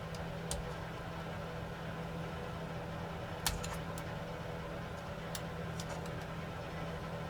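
A steady low hum from the workshop, with a few small sharp clicks of tools and small parts being handled during the drone teardown. The loudest click comes about three and a half seconds in.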